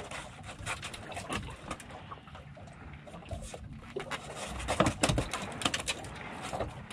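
Irregular clicks, taps and knocks of things being handled on a small fishing boat, with a cluster of louder knocks about five seconds in.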